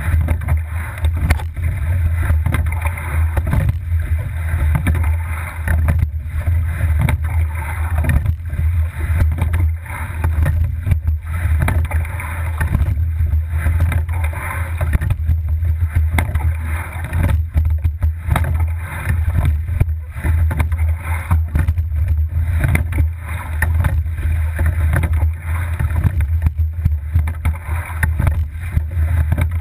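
Double scull rowing shell being rowed through the water: a steady rush of water along the hull, with wind on the microphone as a heavy low rumble.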